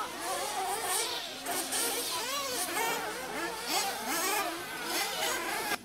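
Several 1/8-scale nitro RC buggy engines buzzing at high revs, their pitch rising and falling over and over as the cars accelerate and brake around the track.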